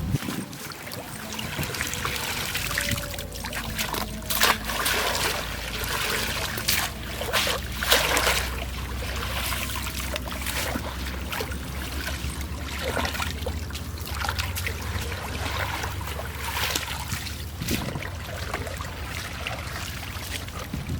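Water trickling and splashing, with irregular splashes now and then, loudest a few seconds in.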